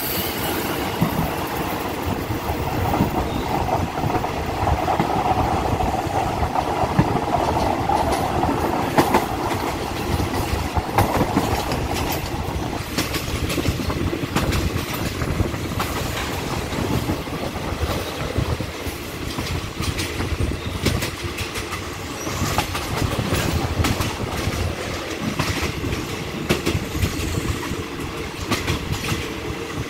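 Passenger train running on jointed track, heard from inside a carriage at the window: steady wheel rumble with repeated clickety-clack of the rail joints.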